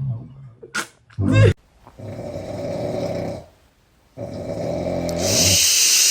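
A sleeping pet snoring. Two brief sounds come about a second in, followed by two long snores of about a second and a half each with a short silence between them; the second snore ends in a breathy hiss.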